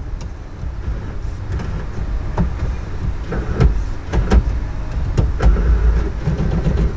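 Blaupunkt in-dash six-disc CD changer mechanism running, with motor whirring and a string of irregular clicks and knocks over a low rumble. It is cycling after a CD Mech Error repair, sounding like it is checking the platters one at a time or aligning its gears.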